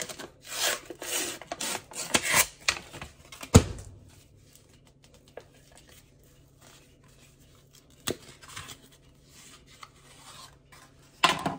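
Paper wrapper of a refrigerated crescent-roll dough tube being torn and peeled off with rapid rustling, then the cardboard tube popping open along its seam with one sharp bang about three and a half seconds in. After that, only light handling clicks and rustles as the dough is worked out of the tube.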